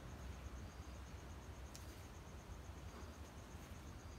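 Faint garden ambience: an insect calls in a rapid, even pulse over a low rumble, with a single click just under two seconds in.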